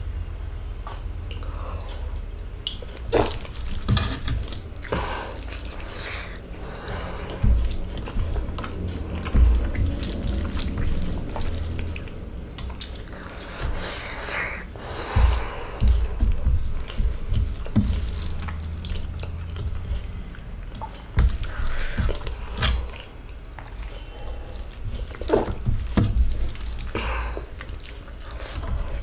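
Eating rice and kuzhambu by hand from a steel plate: wet squishing as the fingers mix and gather the rice, fingers scraping the steel, and chewing, in irregular short bursts over a steady low hum.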